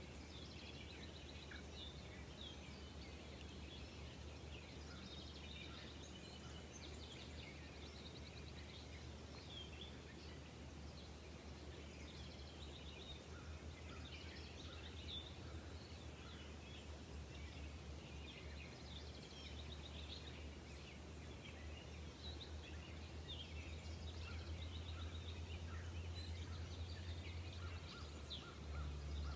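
Outdoor ambience with several songbirds chirping and trilling on and off in the background, over a faint low steady hum.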